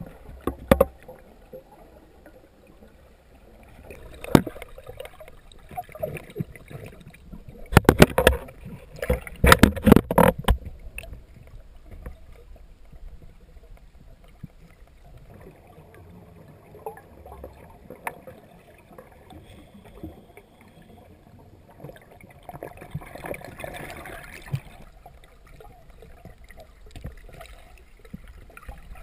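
Muffled underwater sound picked up through a camera held underwater: scattered sharp knocks and clicks, with a dense burst of them about eight to ten seconds in, and a short hissing stretch about three quarters of the way through.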